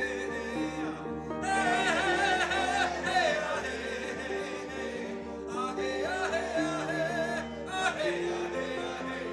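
Background music: a wordless sung melody with a wavering, ornamented voice over sustained instrumental chords.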